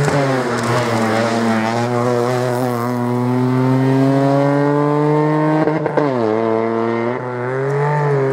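Small rally hatchback's engine at high revs, the pitch slowly climbing as it pulls; about six seconds in the revs drop sharply, then build again.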